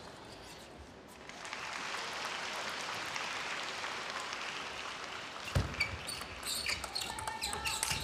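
Spectators clapping for about four seconds in a large hall. Then a single heavy thump, followed by scattered sharp clicks of a table-tennis ball and short squeaks as play resumes.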